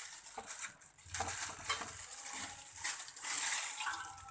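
Hands handling soft bread slices and dishes on a kitchen counter: soft rustling with a few light clicks of a dish or utensil.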